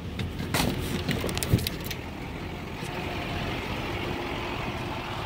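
A few clicks and knocks as the truck's door is opened and someone climbs out during the first two seconds, then the GMC Topkick's Duramax diesel idling steadily.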